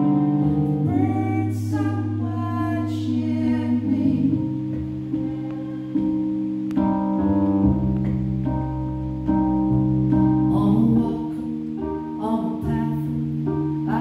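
Live electric keyboard and bowed violin playing a slow song together, the keyboard holding long low chords under the violin's melody.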